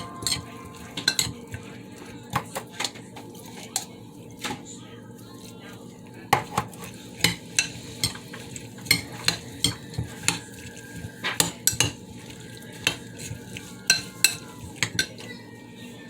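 A utensil stirring food in a pan: irregular clinks and taps against the pan, a couple of dozen over the stretch, over a steady low background.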